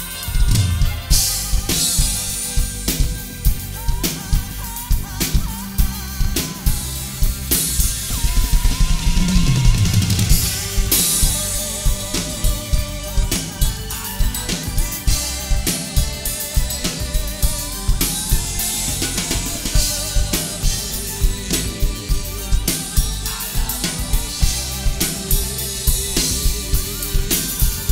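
Drum kit played over a backing track of a pop-rock song: a steady kick-and-snare beat with cymbal crashes.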